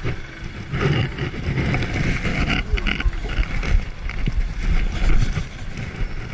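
Street traffic noise and wind rumble on a motorcycle action camera's microphone, irregular and uneven, with no clear engine note.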